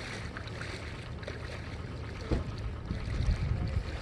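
Wind buffeting the microphone over a steady low rumble, with stronger gusts about halfway through and again near the end.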